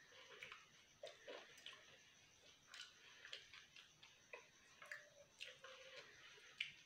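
Faint mouth sounds of a person chewing food: irregular soft wet clicks and smacks.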